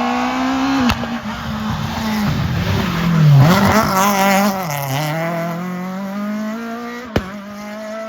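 Rally car engine at high revs, its pitch dropping twice in the middle as it comes off the throttle and picking up again, with tyres squealing around the loudest moment. A couple of sharp cracks, one about a second in and one near the end.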